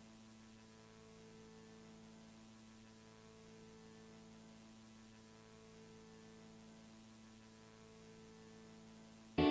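Faint, steady electrical mains hum with a few steady higher tones over it; loud music cuts in at the very end.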